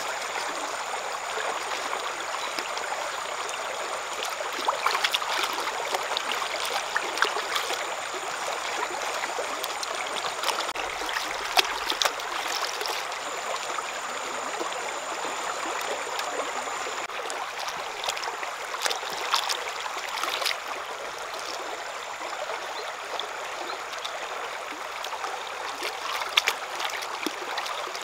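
Shallow stream running over rocks: a steady rush of water, with scattered sharp clicks and small splashes from hands working in and beside the water.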